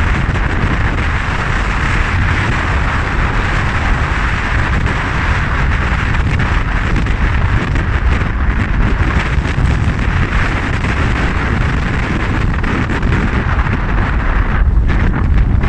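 Strong sea wind buffeting the microphone: a loud, steady low rumble with a rushing hiss over it.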